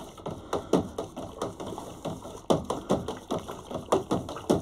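Spoon knocking and scraping against the inside of a metal brew kettle, about three or four light taps a second, as the hot wort is stirred by hand into a whirlpool after the boil.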